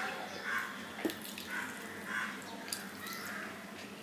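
Close-up wet eating sounds: fingers mixing rice and fish curry on a steel plate, with chewing and a couple of sharp clicks. Crows caw several times in the background, about once a second.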